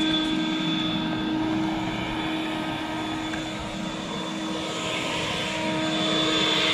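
Handheld leaf blower running steadily, a constant whine over a rush of air that gets louder near the end, blowing loose sand and debris off an exposed-aggregate driveway before it is sealed.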